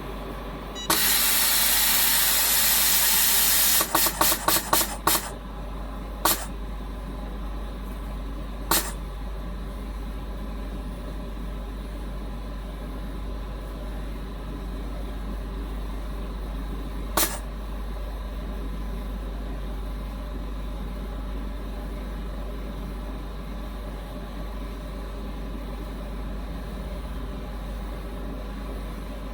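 Vacuum leak tester running its test cycle. Air hisses steadily for about three seconds, then valves release a quick run of short puffs and, later, three single puffs spaced several seconds apart, over the steady hum of the machine.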